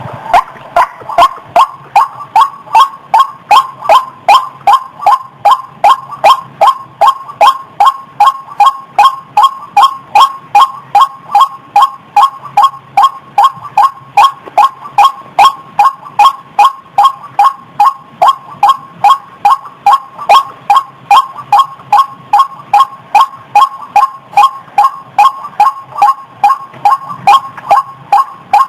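White-breasted waterhen (ruak-ruak) lure call: a rapid, steady run of loud repeated 'wak' notes, about three a second, without a break.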